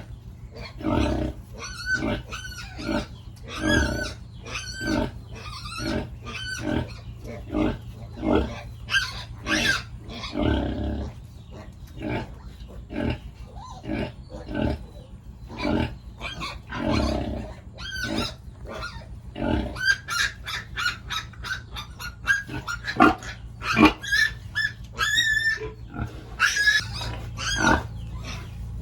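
Pigs grunting and squealing over and over in short calls about once a second, some of them high, wavering squeals. A steady low hum runs underneath.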